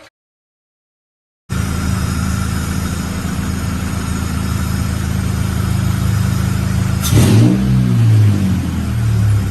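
Honda H22A4 four-cylinder engine in a 5th-gen Prelude, run through headers and a straight pipe, idling steadily after cutting in about a second and a half in. About seven seconds in it is revved, the pitch rising and falling for a couple of seconds before it settles back to idle.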